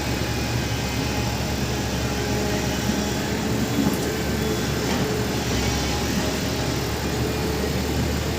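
Heavy diesel engine running steadily, with a continuous low drone.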